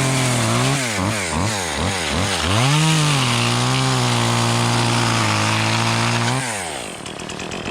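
Chainsaw engine blipped up and down about twice a second, then held at a steady high speed for about three seconds, dropping off sharply near the end to a lower, rougher run.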